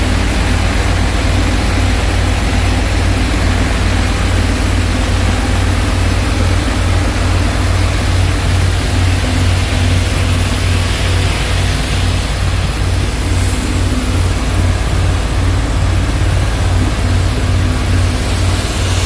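Engine-driven screw vacuum pump skid running steadily under test, its Isuzu 6HH1 six-cylinder diesel and the screw pump together making a loud, even low hum with dense mechanical noise.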